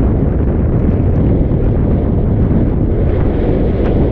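Wind buffeting the microphone of a moving camera: a loud, steady low rumble with no break, with some hiss from the wet road beneath.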